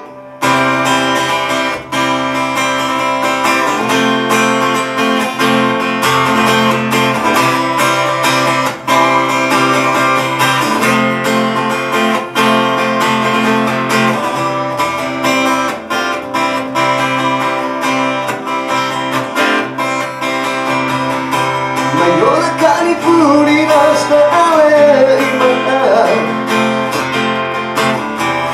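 Acoustic guitar strummed steadily, playing the intro of a pop-rock song. Near the end a sung voice comes in over the strumming.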